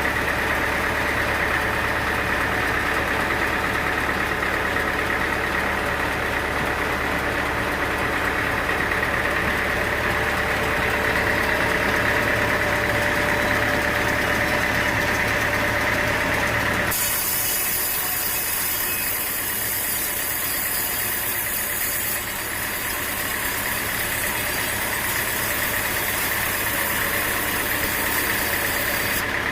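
Sawmill machinery running steadily: an engine-like drone with a constant whine. About seventeen seconds in, the sound changes abruptly, the low drone dropping away and a high hiss coming in.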